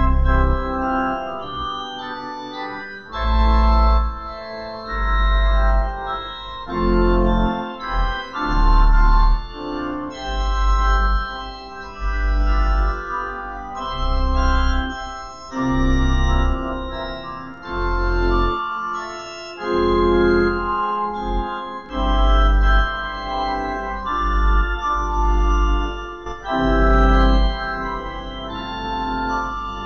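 Slow organ music: sustained chords over deep bass pedal notes that come in and drop out every second or two.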